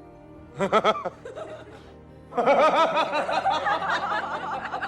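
Laughter over background music: a short laugh about half a second in, then continuous laughing from about two and a half seconds in, over held musical notes.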